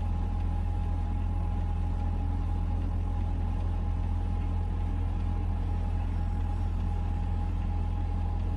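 Excavator's diesel engine running steadily, a loud, even low rumble with a thin steady higher tone above it.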